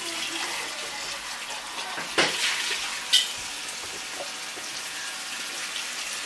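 Kitchen tap running steadily into a sink while utensils are washed, with two sharp clatters of dishes or utensils about a second apart, the second the loudest.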